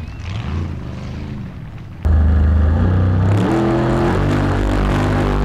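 Formula Offroad buggy engine revving hard during a steep hill climb, heard at a distance. About two seconds in, the sound cuts abruptly to a much louder engine held at steady high revs, as if heard close up.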